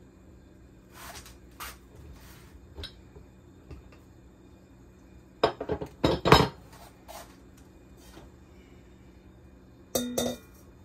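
Workshop handling noises: several loud metallic clanks as a steel pipe wrench is laid down on the workbench about halfway through, then a stainless steel bowl clinks and rings briefly as it is set against the vise-held cylinder near the end. A few soft scrapes and clicks come before the clanks.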